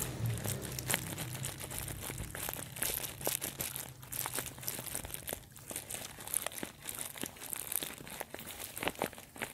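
Goats and lambs eating dry grass up close: a dense, irregular crunching and rustling as they pull at and chew the hay.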